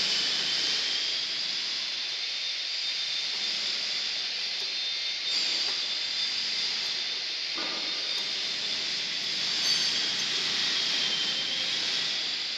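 Steady high hiss with a faint whistle wavering in pitch, broken by a few light clicks and a knock as the camshaft in a six-cylinder cylinder head is turned slowly by hand with a bar.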